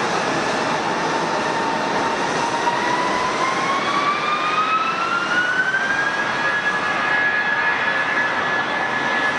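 Jet airliner engines running with a steady rushing roar. About three seconds in, a whine rises in pitch over a few seconds and then holds steady as the engines spool up.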